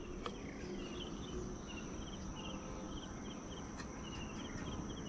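Insects chirping: a steady high-pitched drone with short repeated chirps in little groups about twice a second.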